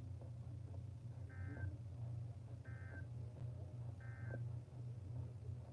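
Emergency Alert System end-of-message signal: three short warbling digital data bursts, about 1.3 seconds apart, marking the close of the warning. Beneath them runs a steady low hum of radio interference.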